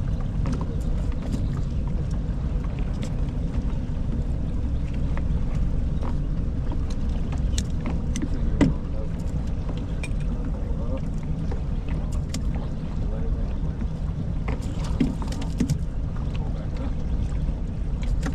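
Steady low rumble of a fishing boat on the river, with scattered small clicks and knocks.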